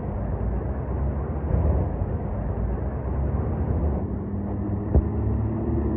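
Steady low rumble of idling truck engines. About four seconds in, a deeper engine drone with a steady pitch comes forward, and a single sharp click sounds about a second later.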